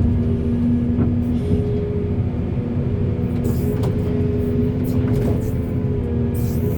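Hydraulic excavator's diesel engine running steadily under work, with a steady whine over the rumble and a few short clinks.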